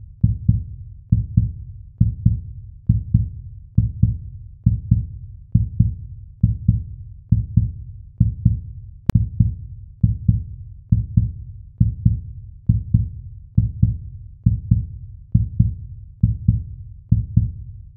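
End-screen background music made of a low, deep double thump like a heartbeat, repeating evenly a little faster than once a second.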